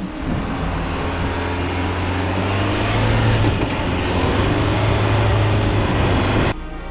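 Four-wheel-drive vehicle driving through soft sand: the engine works under load beneath a steady rush of noise, growing stronger about three seconds in. The sound cuts off suddenly near the end.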